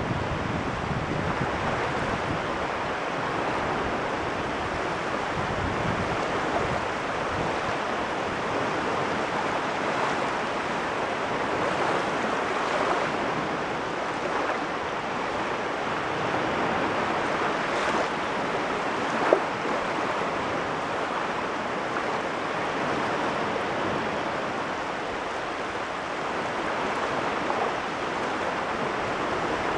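Waves washing steadily onto a shore, a continuous surf wash that swells and eases. One sharp click stands out about two-thirds of the way through.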